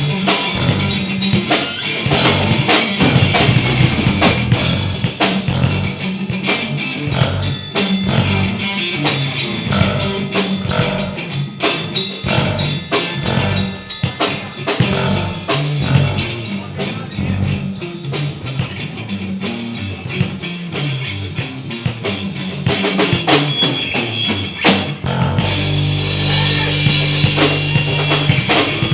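Live rock band playing an instrumental section: drum kit beating steadily with bass drum and snare, over electric guitar and bass guitar. About 25 seconds in the bass settles onto a held chord.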